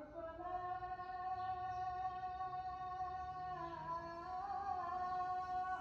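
Quiet background music with a long held note over plucked guitar.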